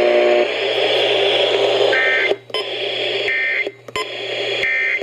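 Emergency Alert System end-of-message data bursts over a radio: three short, screechy bursts of two-tone data signal, starting about two seconds in and coming roughly a second and a half apart. Steady static hiss runs underneath.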